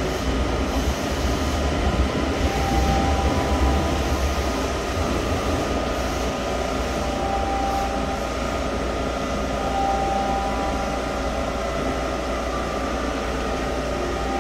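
JR E235 series electric train standing at the platform, its onboard equipment giving a steady hum with a few faint steady tones. There is a heavier low rumble for the first few seconds.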